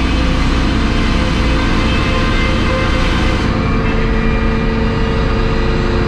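Circular sawmill blade cutting through a log on the carriage, taking off a slab, over the steady hum of the mill's power unit. The high cutting noise drops away about three and a half seconds in, while the hum runs on.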